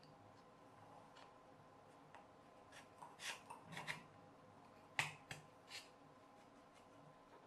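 Faint clicks and cracks from a thin wooden skewer being cut with a hand tool, with one sharper snap about five seconds in.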